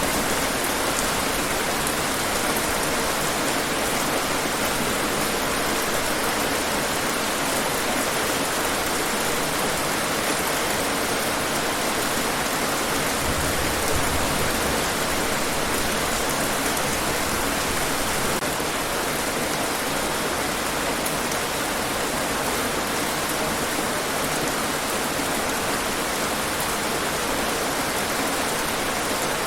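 Steady, heavy rain falling and hitting hard surfaces, a dense even hiss of drops with no breaks.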